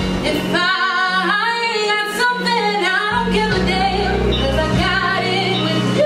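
A woman singing solo, her voice gliding and wavering through the phrases, over a steady instrumental accompaniment.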